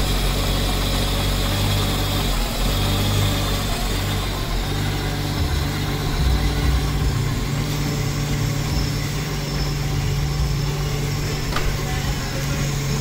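1992 Subaru SVX's 3.3-litre flat-six engine running steadily in drive, with the car up on stands and its wheels turning freely off the ground. One light click comes near the end.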